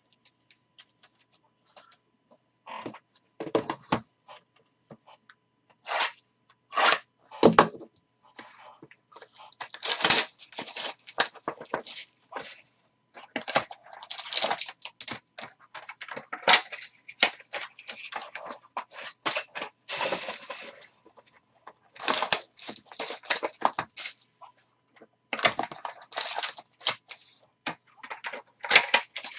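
Trading cards and their plastic holders being handled on a table: clicks and taps, with foil card-pack wrappers crinkling and tearing open in irregular bursts.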